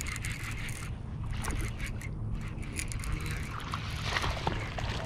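A small hooked largemouth bass being reeled in and landed from the bank: a run of clicks from the reel and line handling, then splashing at the water's surface a few seconds in.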